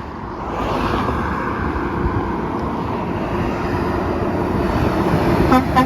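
Truck passing on the road, its engine and tyre noise building quickly and holding steady. Near the end its horn gives a quick run of short toots.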